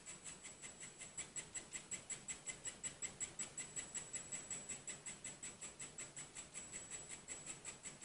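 Handheld 3D printing pen's filament feed motor running while it extrudes, a fast, even clicking of about six clicks a second over a steady high whine.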